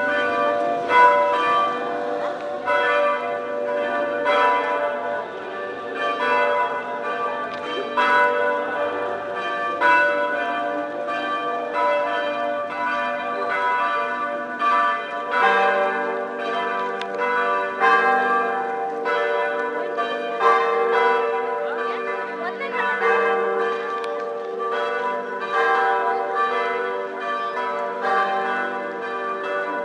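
Church bells pealing, struck in a quick, steady run of overlapping strokes. About halfway through a deeper bell joins, holding a lower tone under the peal.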